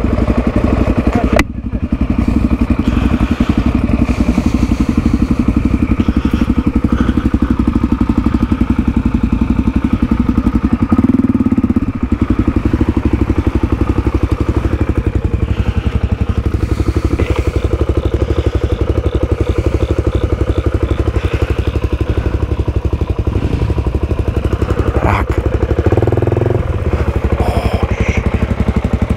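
Off-road motorcycle engine running steadily as the bike is ridden, with an occasional thud or knock from the rough trail.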